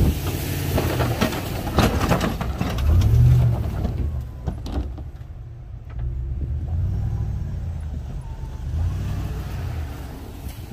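Ford F-250 pickup's engine running under load as the truck pushes snow with its V-plow, pulling harder about three seconds in. Over the first few seconds, snow and ice chunks crunch and scrape under the blade.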